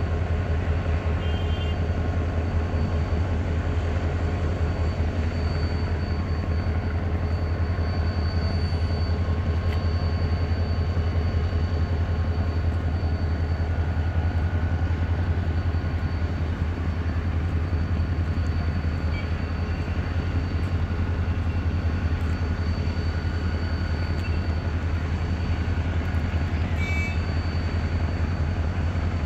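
Diesel-electric locomotive engine running steadily, a loud, even low hum with faint steady whining tones above it. A brief high chirp sounds near the end.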